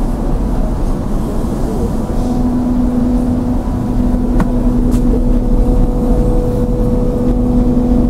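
Steady low drone of a passenger ferry's engines heard from inside its lounge, with a steady hum that grows stronger about two seconds in. Two faint clicks near the middle.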